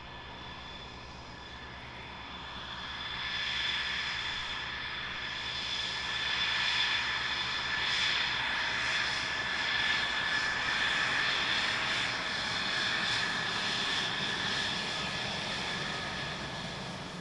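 F-16 fighter jet taxiing at low power, its single turbofan engine giving a steady high-pitched whine over a rushing hiss. It grows louder a few seconds in as the jet comes closer, then eases off near the end.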